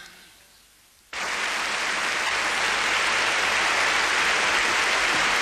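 After a brief quiet moment, an audience's applause starts abruptly about a second in and carries on steadily as many hands clap together.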